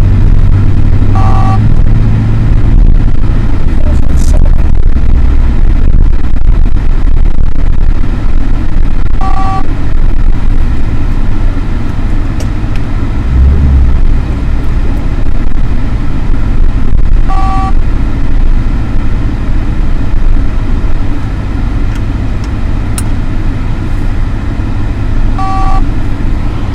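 Steady low rumble of engine and road noise inside a moving car. A short two-tone beep repeats about every eight seconds, four times in all.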